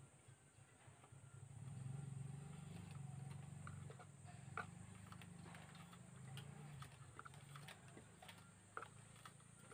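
Faint, scattered small clicks and ticks of electrical wires being handled and fed through a metal tail-light housing, with a low hum swelling in from about a second and a half in and fading by about seven seconds.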